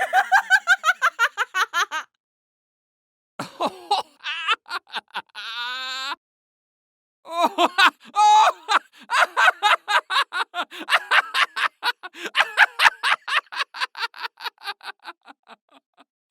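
Three separate laughs, one after another with short silent gaps: a quick burst of rapid laughter, a shorter laugh a few seconds in, then a long run of fast, even 'ha-ha' pulses that fades away near the end.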